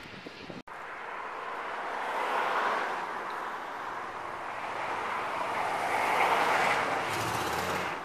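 Road traffic passing: a steady rush of tyre and engine noise that swells about two seconds in and again around six seconds. A short burst of hiss with a low rumble comes near the end.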